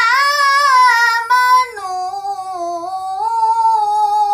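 A young girl's voice in melodic Quran recitation (tilawah), holding one long ornamented note that wavers and then drops to a lower pitch partway through.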